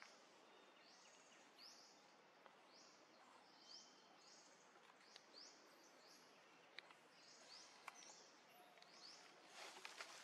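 Faint outdoor background with a short, high chirping call repeated one to two times a second, pausing briefly midway, and a few soft clicks.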